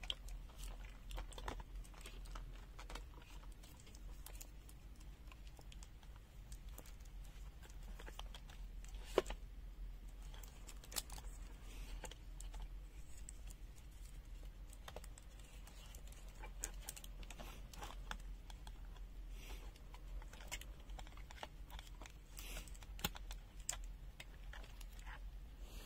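Faint, scattered small clicks and taps of hands handling test gear, with a sharper tick about nine seconds in, over a steady low hum.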